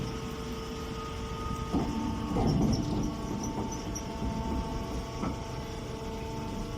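Straw baling machine running: a steady mechanical hum with a few short knocks about two seconds in and again about five seconds in.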